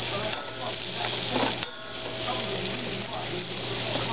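Food sizzling in a pan on the stove, a steady frying hiss, with a utensil stirring and clicking against the pan now and then.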